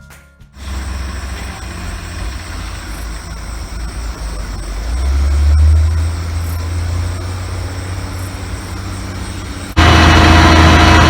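Heavy farm machinery engine running with a steady low rumble during silage work, swelling briefly about five seconds in. Near the end it jumps suddenly to a much louder, fuller engine sound.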